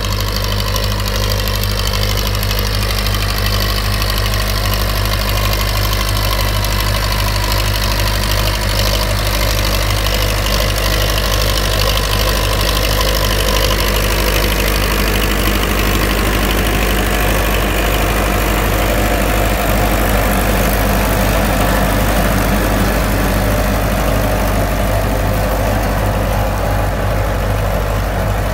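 Farmtrac 6055 Powermax tractor's diesel engine running steadily under load while it pulls and powers a super seeder working through crop stubble.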